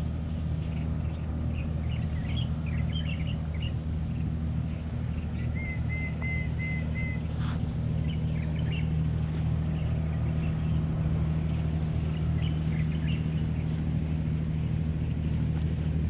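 Steady low engine drone that holds the same pitch throughout, with small birds chirping over it and a short run of four even whistled bird notes about six seconds in.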